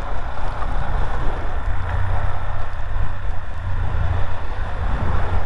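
Honda Hornet 2.0 motorcycle on the move: steady riding noise, a heavy low wind rumble on the microphone with engine and road noise beneath.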